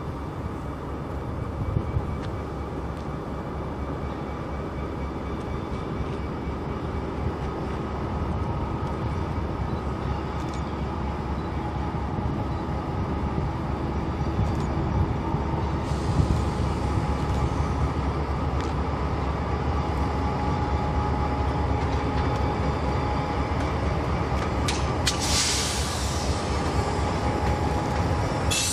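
Freight train rolling past, its cars making a steady low rumble that grows slightly louder. Near the end come a couple of short high-pitched hissing bursts.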